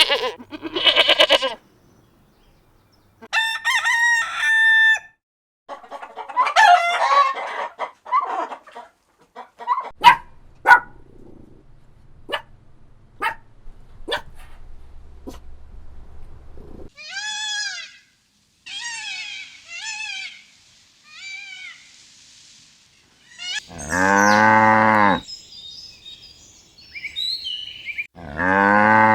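A string of separate farm animal calls: a rooster crowing and hens clucking, with loud bleating about three-quarters of the way through and again at the end.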